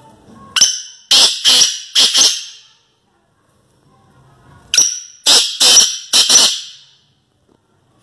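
Black francolin (kala teetar) giving its call twice, each a loud phrase of four short, harsh notes, the second phrase about four seconds after the first.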